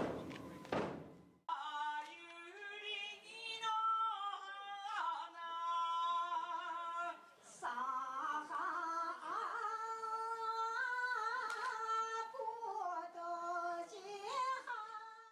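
A single voice singing a slow Japanese bon odori folk song in long, drawn-out notes that waver and slide between pitches. The singing starts about a second and a half in after a short burst of noise, and it stops abruptly at the end.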